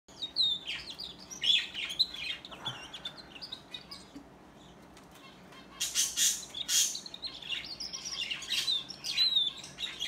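Domestic canary singing: quick high chirps and whistled trills. It pauses briefly just before the middle, then comes back with a few louder harsh bursts about six seconds in before the trilling resumes.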